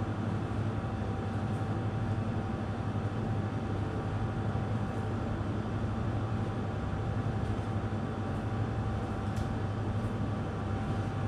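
Steady hum of commercial kitchen machinery: a low drone with a faint steady whine above it. A few faint light clicks come and go as muffins are handled on metal trays.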